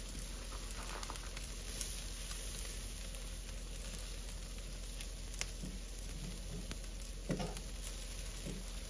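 Chicken drumsticks sizzling over hot charcoal on a grill, a steady crackling hiss, with a few light clicks in the second half as a grill spatula turns a drumstick.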